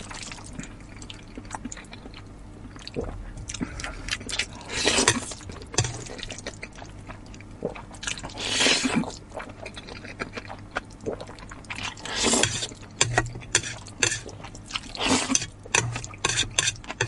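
Hot noodles being slurped in about four long, loud sucks, with short wet chewing clicks between them.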